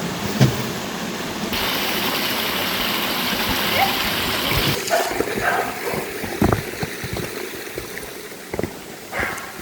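Stream water running and splashing, louder for a few seconds near the start, with a few scattered low thumps.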